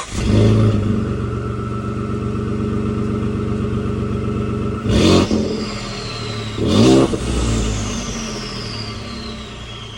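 Ford F-150's twin-turbo 3.5 L EcoBoost V6, exhausting through its factory rolled tip, catches and idles steadily, then is revved sharply twice, about five and seven seconds in. After the second rev a thin whistle falls in pitch as the engine drops back toward idle.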